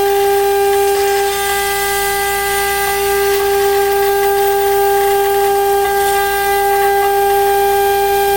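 High-speed spindle of a CNC router running at a steady speed: a loud, unwavering high whine with a hiss underneath.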